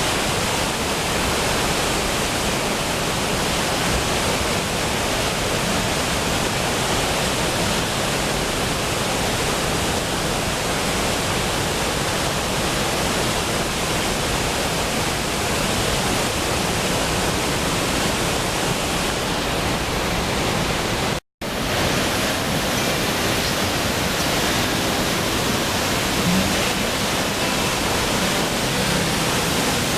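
Waterfall pouring, a loud steady rush of falling water. It cuts out to silence for an instant about two-thirds of the way through.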